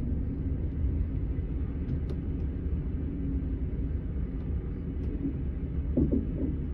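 Setra S 431 DT double-decker bus idling at a standstill: a steady low engine rumble, with a brief short sound near the end.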